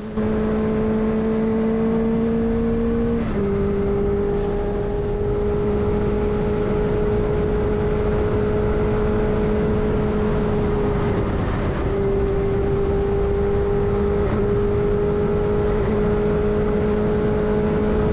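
Benelli TNT600i's inline-four engine and exhaust running loudly at steady cruising revs. The pitch climbs slightly, drops in a single step about three seconds in, then holds nearly steady.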